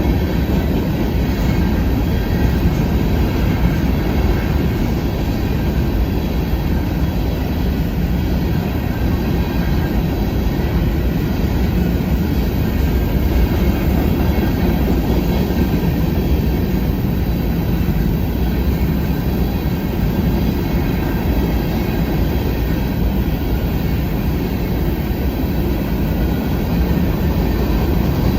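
Freight cars of a long Norfolk Southern manifest train rolling past at speed: a steady, loud rumble of steel wheels on rail.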